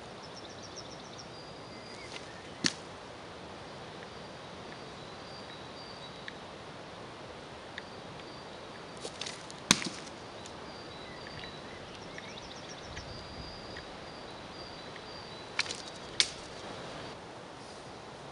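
Atlatl darts thrown three times: each throw is a short swish followed about half a second later by a sharp crack as the dart strikes, the middle one the loudest. Birds chirp faintly in the background.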